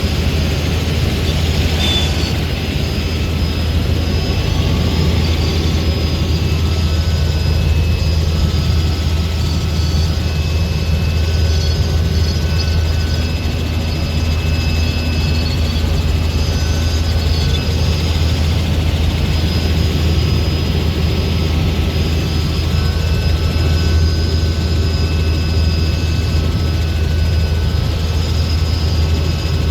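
Helicopter in flight, its rotor and engine making a steady low drone with a constant hum.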